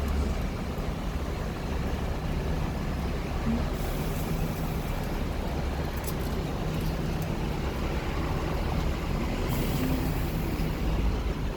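Hong Kong double-decker tram running, a steady low rumble, with two short bursts of high hiss, about four seconds in and again near nine and a half seconds.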